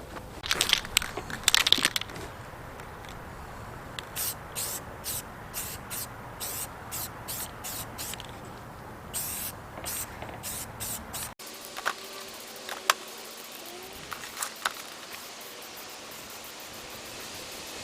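Aerosol spray-paint can giving repeated short hissing bursts, a couple a second for a stretch, with a few scattered bursts later.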